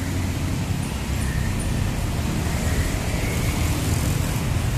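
Steady road traffic noise: motorcycles and cars passing close by, their engines running under a constant low rumble. A faint rising whine comes in about two to three seconds in.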